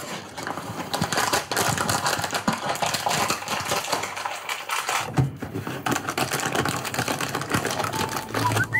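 A paper or foil chocolate wrapper is handled and unwrapped, giving dense, irregular crinkling and crackling. Music comes in near the end.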